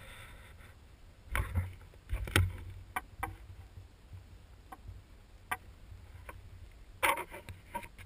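Irregular bumps, clicks and rustles from a handheld camera being handled and turned, the loudest clusters about a second and a half in and near the end.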